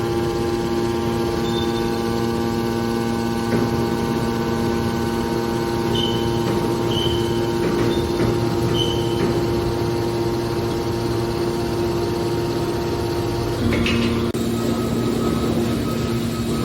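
Hydraulic metal baler running: a steady hum from its motor and hydraulic pump, the tone shifting about 14 seconds in as the load changes, with a few short high squeaks in the middle.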